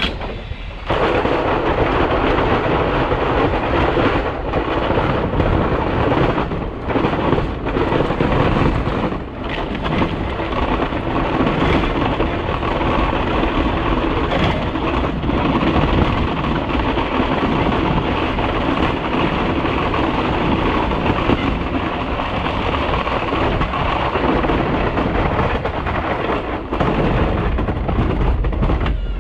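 Plow truck driving on a snowy road: a steady, dense rumble of engine and road noise.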